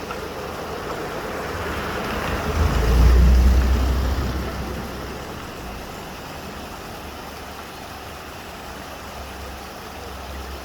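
Steady outdoor rush of a mountain stream, with a low rumble that swells and fades about three seconds in.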